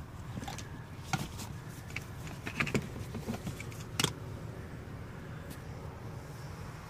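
Handling noise in a car's cabin: faint rustling and a few sharp clicks over a low steady hum, the sharpest click about four seconds in.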